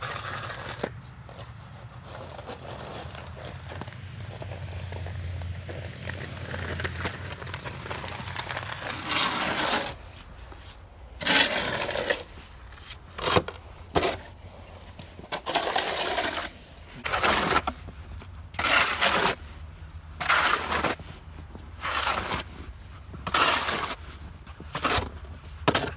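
Snow shovel blade scraping snow off a concrete sidewalk: a steady scrape at first, then from about ten seconds in, separate scraping strokes about every second and a half.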